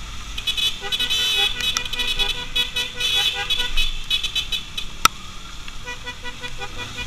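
Vehicle horns honking in rapid stuttering beeps, loudest in the first half and weaker again near the end, over road and engine noise. A single sharp click about five seconds in.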